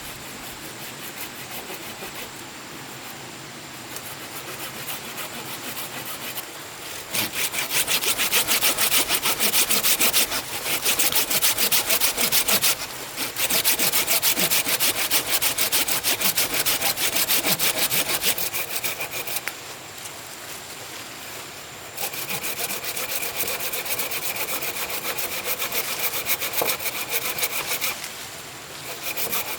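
Hand sawing wood: rapid rasping strokes of a saw cutting through timber, in several long bouts with short pauses between them, loudest from about a quarter of the way in.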